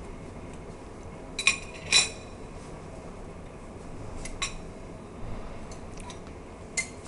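A knife and metal bar tools clinking against a ceramic plate and glassware: five sharp, briefly ringing clinks, the loudest two about a second and a half to two seconds in.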